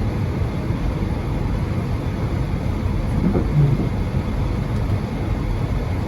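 Steady low rumble of a car being driven, engine and tyre noise running evenly.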